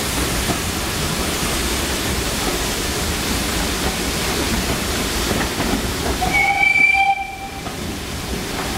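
Steam train running with a steady noise, and a short whistle sounded for about a second near the end.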